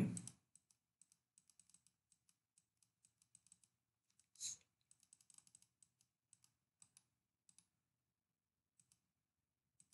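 Faint, scattered clicks and taps of a computer mouse and keyboard, at times in quick clusters, with one louder noise about four and a half seconds in.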